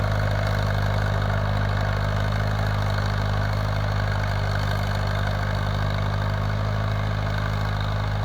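County Super 4 tractor's Fordson Super Major four-cylinder diesel engine running at a steady, unchanging speed.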